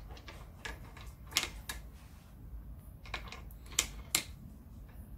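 Brake pipe flaring tool in a bench vise being handled, its metal clamp and die parts giving a handful of sharp, irregular clicks and taps as a copper brake pipe is set in it.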